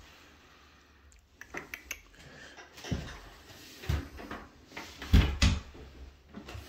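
Footsteps in boots on old hardwood floorboards: a few dull thumps about a second apart, the heaviest about five seconds in, with small knocks and clicks between.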